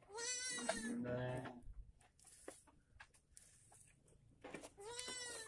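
Sheep bleating twice, quavering calls: a longer one of about a second and a half at the start and a shorter one near the end.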